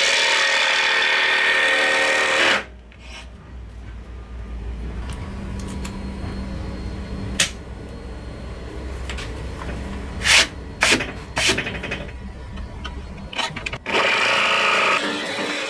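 Cordless drill boring into plywood for about two and a half seconds, then a quieter stretch with a few sharp clicks of a jigsaw blade being changed, and the drill running into the plywood again near the end.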